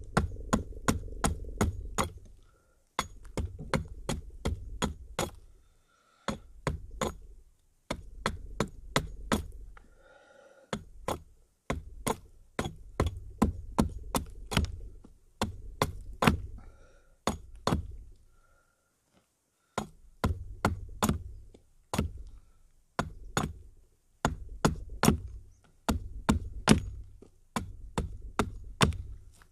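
Hatchet chopping at a thin wooden pole: quick runs of sharp chops, two to three a second, broken by short pauses.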